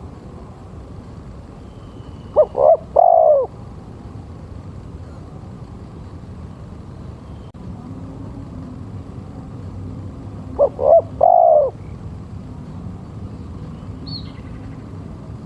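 Spotted dove cooing: two three-note phrases about eight seconds apart, each two short coos and then a longer, falling croo. A steady low background hiss runs underneath.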